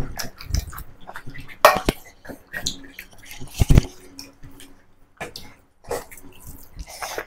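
Eating by hand: rice and curry being mixed and squeezed on plates by fingers, with chewing and a few sharp knocks and clinks of dishes, the loudest about two seconds in and just before four seconds in.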